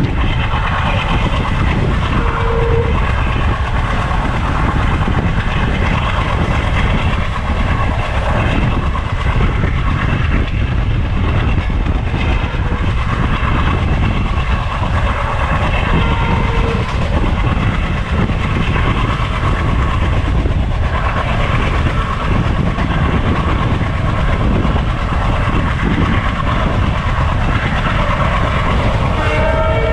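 Train running along the track: steady loud wheel-on-rail noise with the clickety-clack of wheels over rail joints, and a horn starting just before the end.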